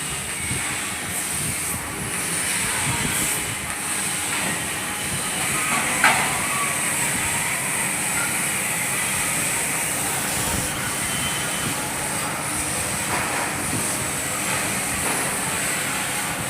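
CNC laser cutter cutting sheet steel: a steady, loud hiss with machine rumble beneath, and one sharp brief pop about six seconds in.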